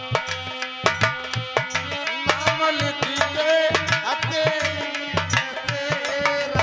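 Instrumental interlude of Indian folk devotional music. Barrel hand drums (dholak) beat a steady quick rhythm of about three to four strokes a second under a held drone chord, and a wavering melody line enters about two seconds in and fades near the end.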